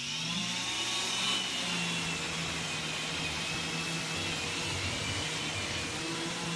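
Festool ETS 125 EQ random orbital sander spinning up and then running steadily on a wood panel with 150-grit Granat paper, while a dust extractor pulls air through its hose.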